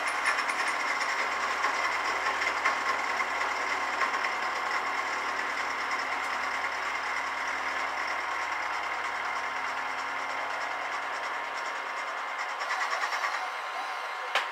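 Bench milling machine running with its end mill cutting along a metal workpiece on the last pass: a steady mechanical whine with many tones, growing a little louder and rougher in the last couple of seconds.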